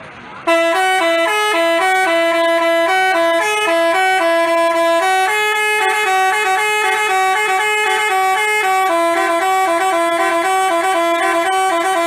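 Telolet basuri musical bus horn playing a tune, a quick run of stepping horn notes that starts about half a second in.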